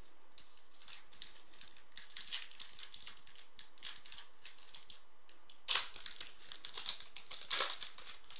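Foil wrapper of a trading card pack crinkling as it is torn open and peeled off by hand, with louder crackles about six and seven and a half seconds in.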